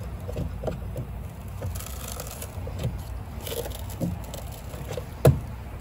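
A carbon arrow being worked loose and pulled out of a car door, scraping and clicking against the door, with one sharp knock about five seconds in.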